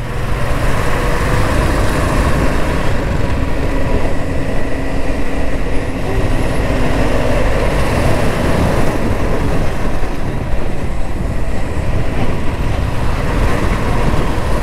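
Royal Enfield Classic 350's single-cylinder engine running steadily while riding through city traffic, under a constant rush of wind and road noise, with other vehicles' engines around.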